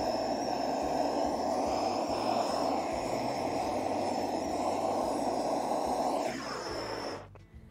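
Handheld propane torch burning with a steady rush, its flame held into a kamado grill's top vent to melt creosote build-up. Near the end the torch is shut off: the sound falls in pitch over about a second and cuts out.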